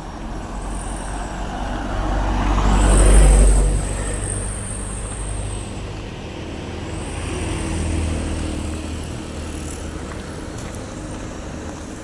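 Road traffic passing by. A vehicle passes close and loud about three seconds in, and another passes more faintly around eight seconds.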